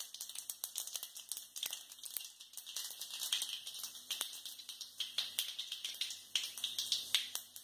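Mustard seeds spluttering in hot oil in a steel kadai: a rapid, irregular crackle of sharp little pops.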